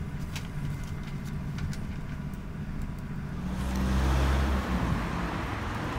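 Low, steady rumble of a vehicle on the move, swelling louder about four seconds in, with a few faint clicks in the first two seconds.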